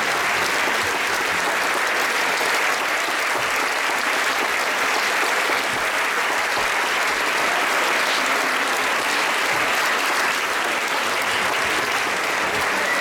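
Theatre audience applauding steadily: dense, even clapping with no pause.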